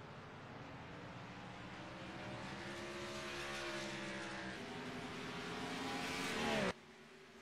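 A race car's engine running, growing steadily louder over about six seconds, then dropping sharply in pitch and cutting off abruptly near the end.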